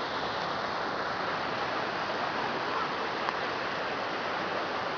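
Steady rushing of flowing water from a stream or waterfall, an even hiss without breaks.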